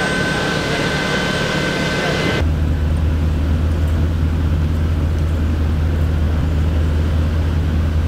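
Engine running steadily at idle. Until about two and a half seconds in, a steady high whine and hiss sit on top. After that, a deep, even hum takes over.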